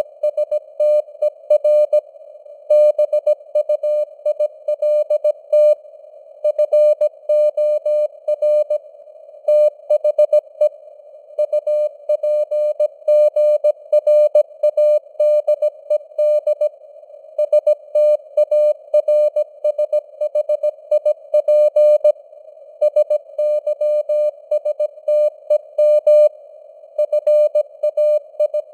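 Morse code at 17 words per minute: a single tone of about 600 Hz keyed on and off in dots and dashes. It sits over a narrow band of simulated radio noise hiss.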